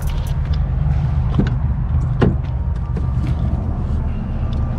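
Steady low rumble with a few clicks and knocks as a pickup truck's door is opened and someone climbs into the cab.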